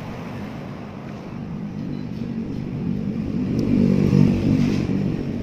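A motor vehicle passing by: a low engine rumble that builds, is loudest about four seconds in, then fades.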